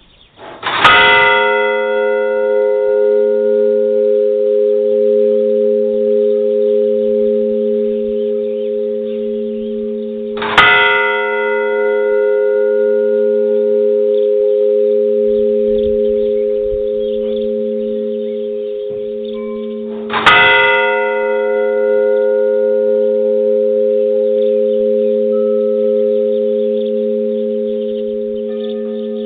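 Large church bell struck three times, about ten seconds apart. Each stroke rings on with a long, slowly fading hum.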